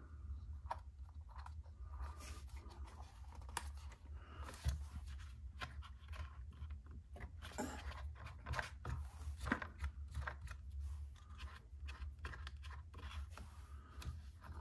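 Irregular small clicks, taps and scrapes of a plastic RC car chassis tub and its parts being handled and fitted by hand, over a low steady hum.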